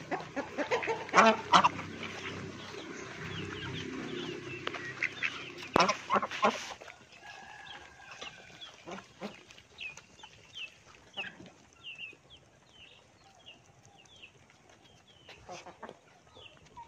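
Domestic geese, ducks and chickens calling in a farmyard: honking, quacking and clucking for about the first seven seconds. After that it turns quieter, with many short high bird chirps repeating.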